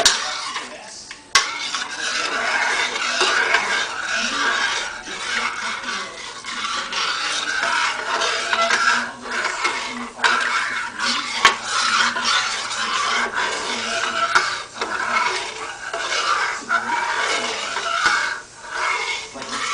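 Metal spoon stirring liquid in a stainless steel saucepan, scraping steadily against the pan's bottom and sides, with a few sharper clinks against the pan.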